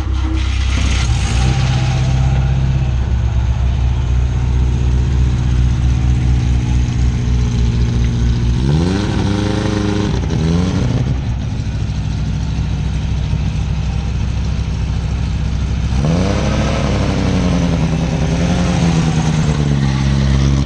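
Moskvich 403's four-cylinder engine idling on the choke, blipped up in revs twice: briefly about nine seconds in, then held higher for several seconds from about sixteen seconds in.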